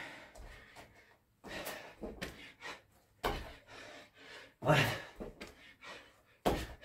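A man breathing hard during burpees and kettlebell thrusters: loud gasping breaths every second or so, with a short voiced grunt about two-thirds of the way in and a thump near the end.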